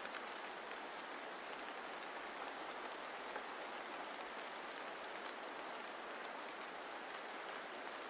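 Steady rain falling, an even hiss of many small drops.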